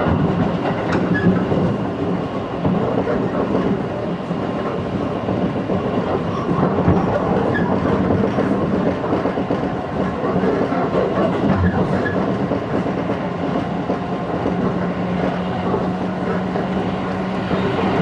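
Interior running sound of a JR 211-series electric multiple unit under way: steady rumble of wheels on rail with occasional rail-joint clicks and a low steady hum.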